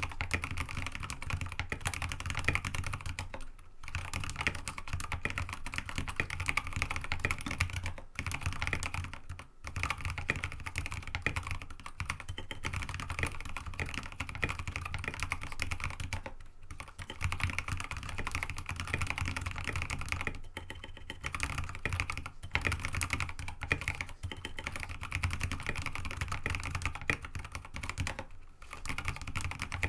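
Continuous fast typing on a mechanical keyboard with Kailh Box Ancient Gray switches, an aluminum plate and mStone MA keycaps: a dense run of key clicks with a few short pauses.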